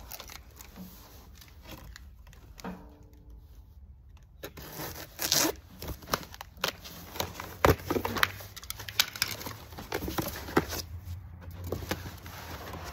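Cardboard box being handled and torn open by hand: flaps scraping, tearing and rustling, with short sharp knocks and crackles. It starts quiet and gets busier about halfway through.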